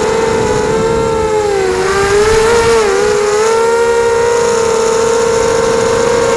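ZMR 250 racing quadcopter's brushless motors and propellers whining in flight, heard from its onboard camera. The pitch drops and wavers between about one and a half and three seconds in as the throttle changes, then holds steady.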